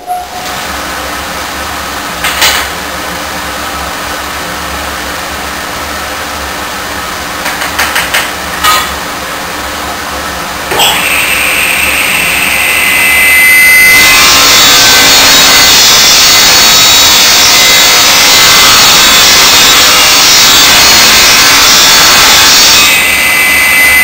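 Woodworking table saw: a steady machine hum with a few knocks, then the circular saw is switched on about eleven seconds in with a high whine from the spinning blade, running much louder from about fourteen seconds and easing slightly near the end.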